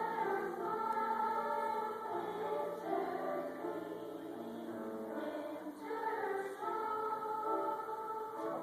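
Choir singing held chords in several parts, a new phrase entering near the start and again about six seconds in.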